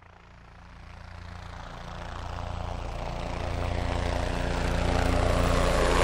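Helicopter engine and rotor sound, a steady low drone, fading in from quiet and growing steadily louder.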